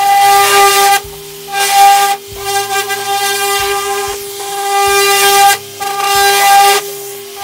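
Festool ETS EC 150 random orbital sander running with a steady high whine while sanding a painted car body panel. A hiss from the pad on the paint swells and falls off in passes of roughly a second to a second and a half.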